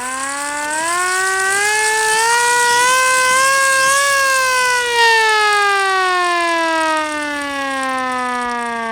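Hand-crank air raid siren wailing: its pitch climbs in small steps to a peak about four seconds in, then falls away steadily in a long descending wail.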